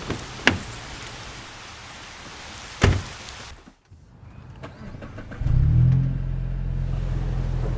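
Rain falling, with two sharp knocks, then after a brief hush the 2021 Mazda3 Turbo's 2.5-litre turbocharged four-cylinder starts about five seconds in, flaring up briefly before settling to a steady idle.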